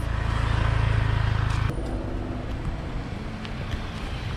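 A car's engine running close by with a steady low hum, which cuts off suddenly about one and a half seconds in, leaving quieter street noise.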